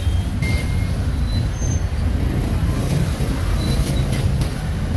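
Street traffic: a steady low rumble of passing vehicle engines, with a few short sharp knocks.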